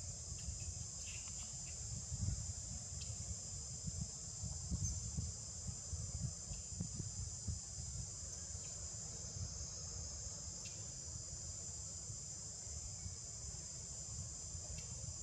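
Steady high-pitched insect chorus droning without a break, over a low, uneven rumble.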